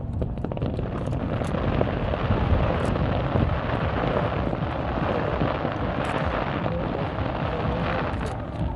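Fireworks going off in a dense, continuous crackling barrage with a low rumble underneath.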